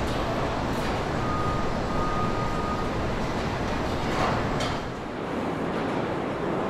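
Steady workshop background noise, a continuous rumble and hiss with no single clear source. A faint thin tone sounds for about a second and a half, starting about a second in.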